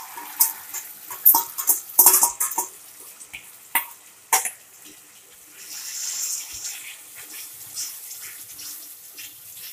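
Metal utensils knocking and scraping against a steel kadai, with about a dozen sharp clinks in the first four seconds or so as a sauce paste is scraped out of a steel bowl into the pan. Then the sauce sizzles with a soft hiss and is stirred in the pan.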